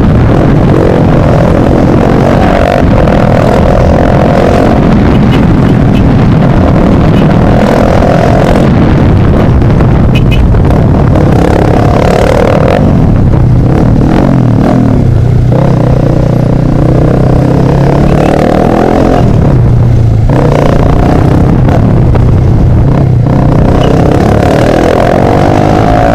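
Motorcycle with an open, unmuffled exhaust riding through traffic, the engine revving up and easing off by turns under heavy wind rush.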